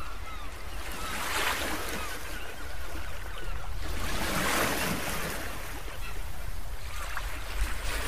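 Ocean waves washing in, swelling and receding about every three seconds over a steady low rumble.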